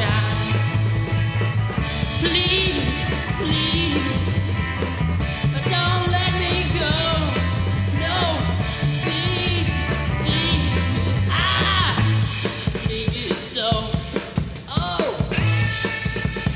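Rock and roll band recording playing: bass and drums under a lead part of wavering, bending notes, with the drums standing out more near the end.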